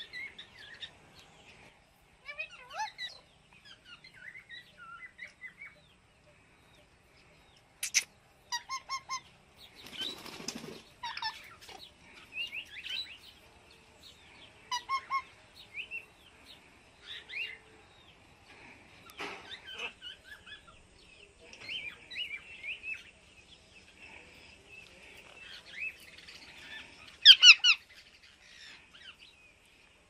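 Parrots chirping and calling in short, scattered notes, with a brief rush of wing flapping about ten seconds in and a loud squawk near the end.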